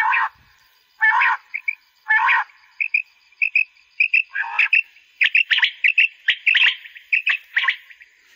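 Quail calls played through a battery-powered car tape player used as an electronic quail caller. Three harsh calls come about a second apart, then from about three seconds in, quick short chirps come several times a second.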